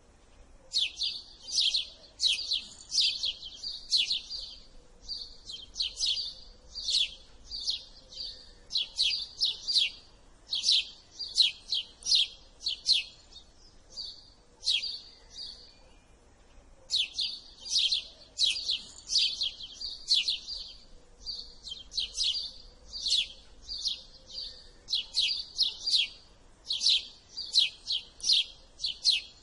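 House sparrow chirping: a long run of short, sharp chirps in bouts of several, with brief pauses between bouts.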